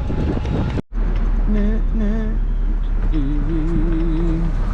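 Steady low rumble of a car driving, cut off by a brief dropout about a second in. Over the rumble, a voice hums or sings a few wavering held notes.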